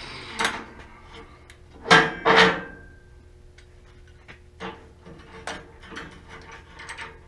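Two loud metal clanks about two seconds in, the second leaving a brief ringing tone, then a scatter of light taps and clicks as steel parts and tools are handled.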